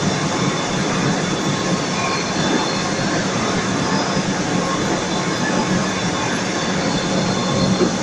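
Cable stranding machine running at speed, its cage of copper-wire bobbins spinning. It gives a steady, loud mechanical noise with a low hum underneath.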